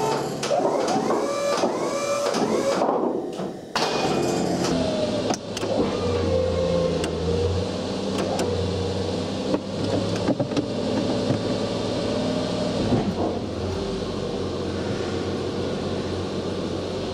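Sno-Way plow's electric-over-hydraulic pump motor running in several stretches as the blade is worked, with pitch shifting under load and a short break about three seconds in.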